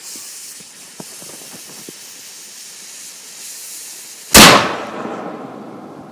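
A burning fuse hisses and sputters with a few small crackles for about four seconds, then a homemade PVC cannon loaded with ball-milled black powder fires with one loud bang that dies away over a second or so.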